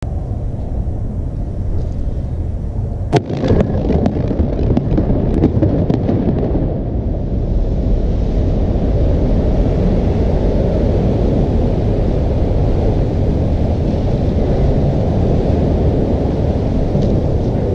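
Explosive demolition charges going off in the piers of an old bridge: a sharp blast about three seconds in, followed by a quick run of further cracks over the next few seconds, over a steady low rush of noise.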